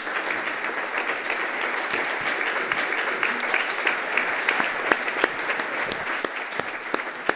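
Audience applauding: dense, steady clapping from a large crowd, with single sharp claps standing out.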